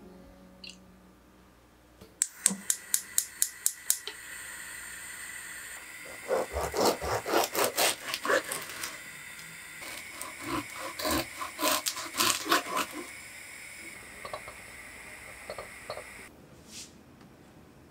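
Knife sawing through a crusty baguette on a wooden cutting board, in repeated back-and-forth strokes. A quick run of about nine sharp clicks comes first.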